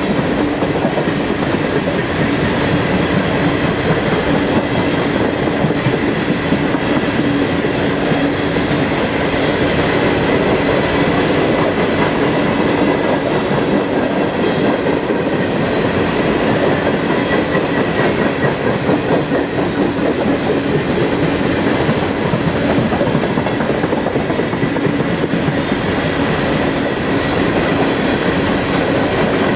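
Long freight train of Norfolk Southern TopGon coal gondolas rolling steadily past: a constant rumble of steel wheels on rail, with repeated clicking as the wheels cross the rail joints.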